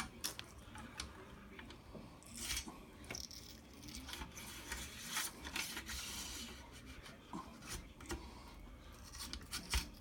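Faint rubbing and scraping with scattered small clicks from rifle parts and cleaning tools being handled and scrubbed.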